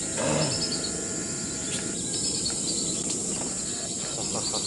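Crickets chirping: a steady high drone with a short trill that repeats every couple of seconds.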